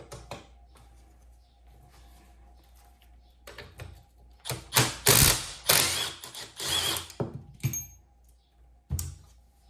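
A Milwaukee cordless power tool runs in several short bursts, spinning the nut off a brake pedal pivot bolt while a wrench holds the bolt. There are light tool clicks before it and a single knock near the end.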